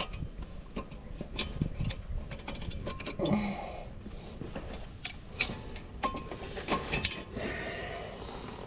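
Brake pads, their metal clips and hand tools clinking, knocking and scraping against the caliper bracket as the pads are forced into place, with a scrape near the end.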